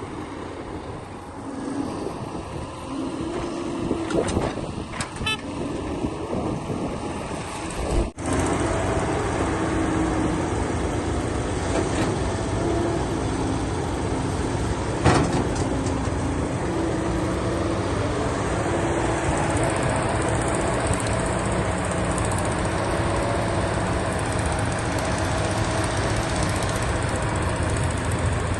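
Heavy machine's engine running steadily, with a sudden jump in loudness about eight seconds in and a single sharp clank about halfway through.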